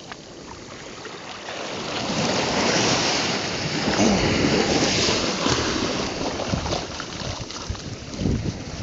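Shallow surf washing up and back over the sand, swelling about two seconds in.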